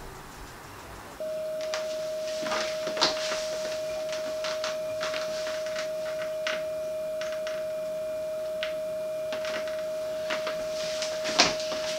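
A single steady tone starts abruptly about a second in and holds throughout. Over it come scattered clicks and knocks of things being shifted about inside a lower kitchen cabinet.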